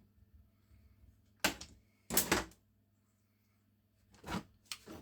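Short scraping and clattering noises from handling an angle grinder's plastic housing as its one-screw brush cover is taken off: two bursts about one and a half and two seconds in, the second the loudest, then two more near the end.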